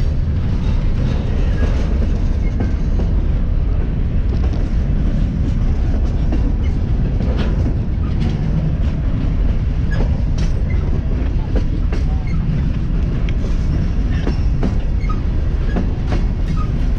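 Freight train's open-top hopper cars rolling past close by: a steady rumble of steel wheels on rail, with scattered clicks and clanks.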